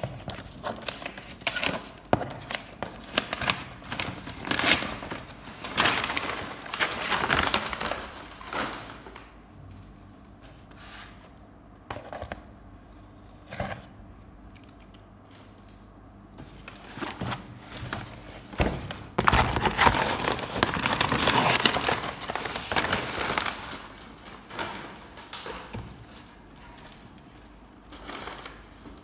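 Wrapping paper torn and crumpled and packing tape peeled off a cardboard box, with hands scraping and rubbing over the cardboard. It comes in busy spells at the start and again after the middle, with a quieter stretch of scattered clicks between.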